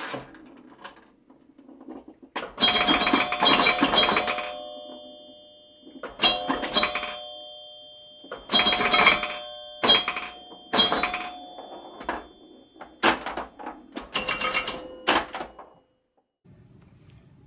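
Metal climbing hardware, steel climbing spurs with their carabiners and strap buckles, clanking together in repeated clusters of knocks as the spur straps are cinched up. Each cluster leaves clear metallic tones ringing on for a few seconds. It goes quiet near the end.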